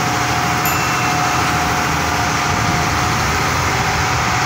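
A fishing boat's engine running steadily under load while towing another boat on a rope, a constant drone mixed with wind and sea noise.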